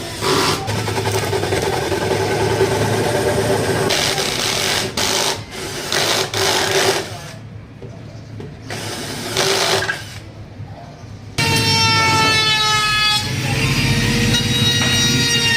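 Power tool cutting or working MDF board, running in stop-start bursts. From about eleven seconds in it gives way to a loud, steady whine with several pitches that waver slightly.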